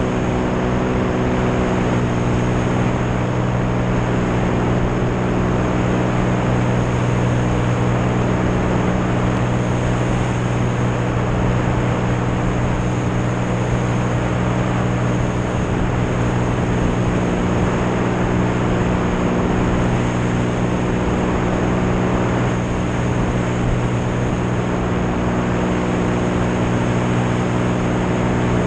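Single-engine light aircraft's propeller engine running steadily in flight, an even drone under heavy wind rush on the outside-mounted microphone.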